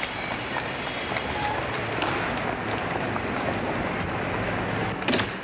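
Electric passenger train at a station platform: a steady rumble with a high, steady squeal over the first two seconds. A sharp bang sounds near the end.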